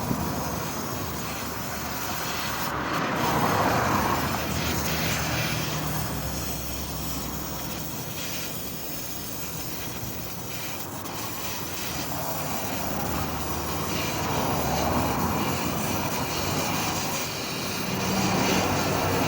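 Chevrolet Chevy's engine and exhaust through a newly fitted silencer and tip while driving, swelling louder a few times as it picks up speed, with steady road and wind noise.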